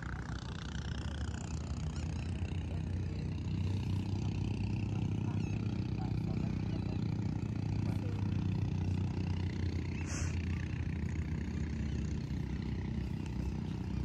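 An engine drones steadily at a distance, with one short tick about two-thirds of the way through.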